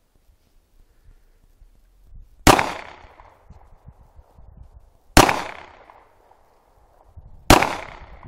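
Three pistol shots, spaced about two and a half seconds apart, each followed by a short echoing tail.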